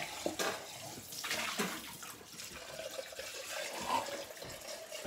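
Water running from a kitchen tap into a sink, with a few faint knocks.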